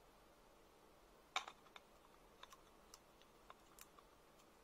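A few faint, sharp clicks and taps from aluminium square tubing and its small fitted parts being handled and pressed together. The loudest click comes about a second and a half in, followed by several lighter ones.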